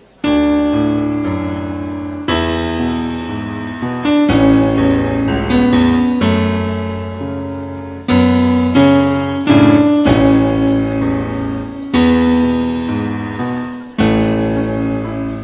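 Piano playing slow, full chords. Each chord is struck and left to ring and fade, a new one coming every one to two seconds, with a quicker run of chords near the middle: an accompaniment introduction to a choir song.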